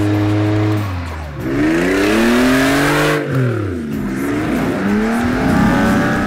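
Off-road buggy engine held at steady revs, then revved hard up and down twice and again near the end while its wheels spin in deep mud, spraying it.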